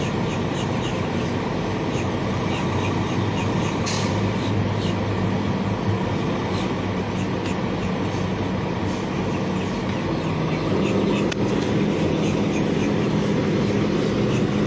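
Steady engine rumble of idling trucks, with a hum that holds one pitch, and a couple of faint clicks.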